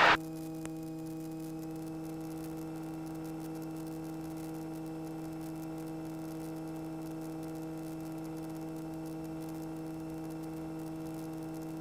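Light aircraft's piston engine and propeller droning at a steady, reduced slow-speed power setting, heard as an even, unchanging hum in the cockpit.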